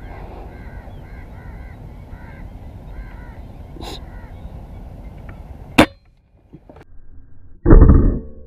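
A bird calling over and over in short paired notes over a steady outdoor background noise, which cuts off abruptly after a sharp click about six seconds in. Near the end comes a loud, low thump lasting about half a second.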